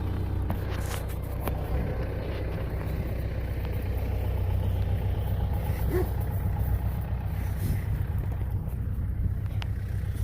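Vehicle engine running steadily under way, a continuous low rumble with a few light knocks.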